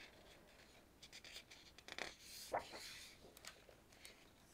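Faint rustling and scraping of a picture book's paper page being turned, with a few light ticks as the page is handled.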